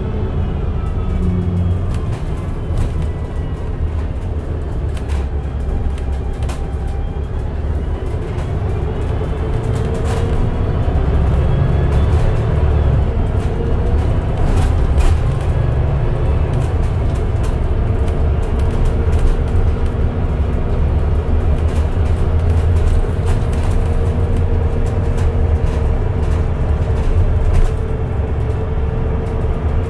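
Mercedes-Benz O405NH bus with a Voith automatic gearbox on the move: low engine rumble with a driveline whine that falls in pitch in the first few seconds as it slows. From about eight seconds in, the whine rises again in sweeps and the sound grows louder as it accelerates, then runs steadier, with occasional rattles.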